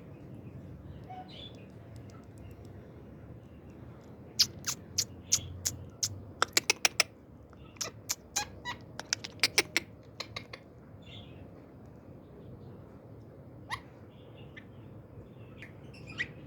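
A pet parrot giving a quick run of short, sharp chirps and clicks, bunched in the middle with a couple more near the end.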